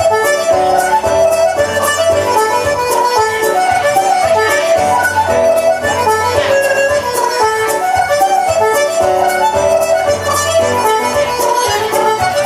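Instrumental folk-style music: a free-reed melody over a steady bass line.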